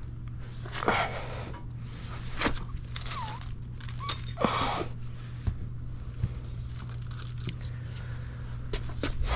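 Handling noises: rustles of a paper parts packet and light knocks and scrapes of parts on concrete, in three short bursts over a steady low hum.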